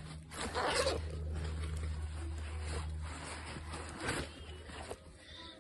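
Backpack being opened and rummaged through by hand: fabric and straps rustling and scraping, with a louder scrape just after the start and another about four seconds in, over a low steady hum.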